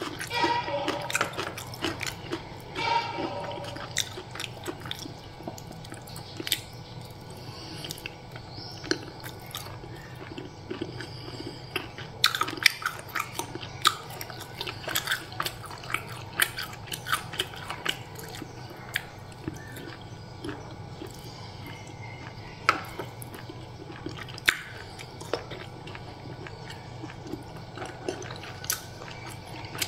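Close-up eating sounds: a person chewing beef rendang and fried noodles with wet mouth sounds, and sharp clicks and scrapes of a metal spoon and fork on a tray throughout, over a low steady hum.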